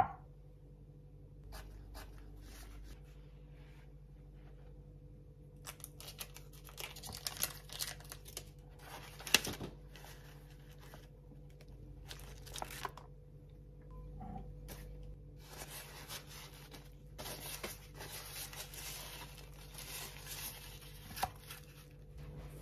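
Kitchen paper towel rustling and crinkling in the hands as it is wrapped around a block of silken tofu, in on-and-off spells with a sharp click about nine seconds in. A glass bowl clicks down on a wooden board right at the start.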